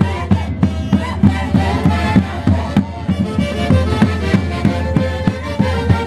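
Andean orquesta típica playing Santiago festival music: several melody instruments together over a steady drum beat.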